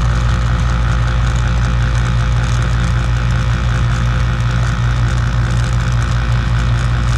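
KitchenAid KDTM354DSS4 dishwasher running a rinse cycle, opened up from below: a steady motor hum with the even rush of circulating water.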